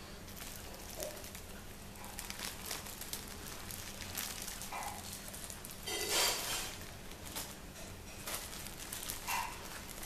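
Plastic bags crinkling and rustling as an Alexandrine parakeet and an Indian ringneck peck and dig into them for food, in a run of small crackles, with a louder sharp burst about six seconds in.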